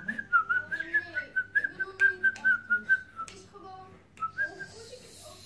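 A woman whistling a quick run of short notes at nearly one pitch for about three seconds, then one brief note again about four seconds in.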